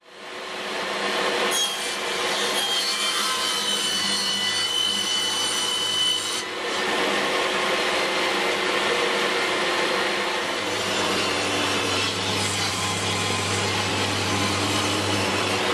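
DeWalt table saw running and cutting sheet stock, acrylic and a wooden board, with a dust extractor drawing through the overhead blade guard. A thin high whine rides over the cutting noise for the first few seconds and drops out about six seconds in.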